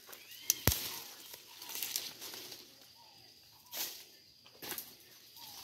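Two sharp clicks from handling the phone about half a second in, then faint rustling of plants, with two short louder brushes later on.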